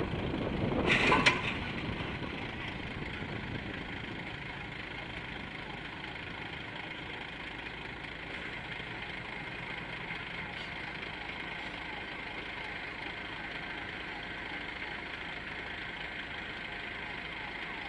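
Volvo lorry's diesel engine running steadily. There is a short loud burst of noise about a second in.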